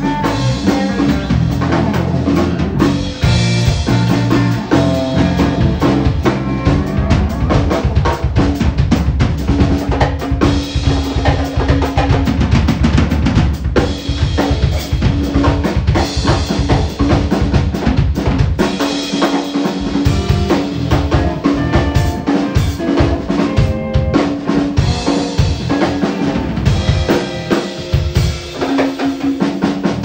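A live rock band playing loud and dense, the drum kit loudest with busy snare and bass-drum hits and fills, over bass and electric guitar.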